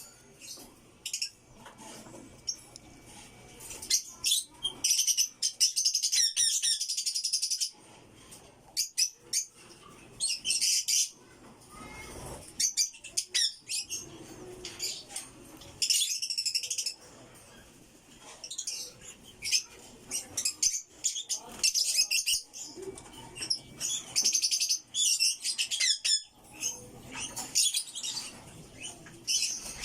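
African lovebirds chattering in repeated bursts of rapid, shrill chirps, with short clicks and scuffles between the bursts.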